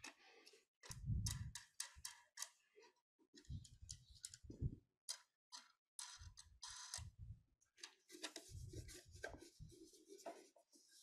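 Faint handling noise of a wooden bowl in its wooden slot-cutting jig: scattered light clicks and knocks with bouts of low rubbing.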